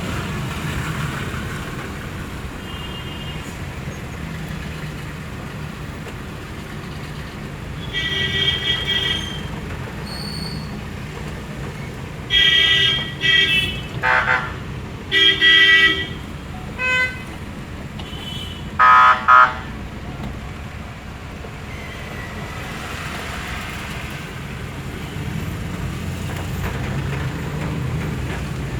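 Road traffic with a steady low rumble of engines, and vehicle horns honking several times in short blasts, most of them bunched in the middle.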